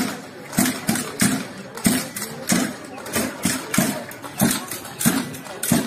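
A drum struck in a steady marching beat, about three beats every two seconds.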